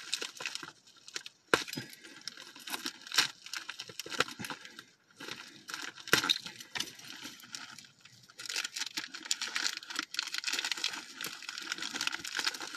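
Thin plastic toy bag crinkling and rustling as it is handled, with scattered small clicks and taps; the rustling becomes denser and steadier about eight seconds in.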